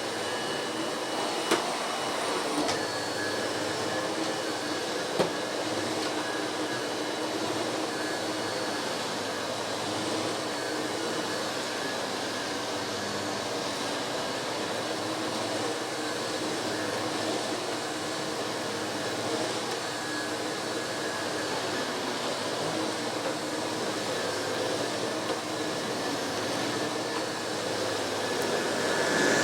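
Miele S5 Callisto canister vacuum cleaner running with its small electric power brush on carpet: a steady whining motor hum. Two sharp clicks come in the first few seconds, and the sound gets louder near the end.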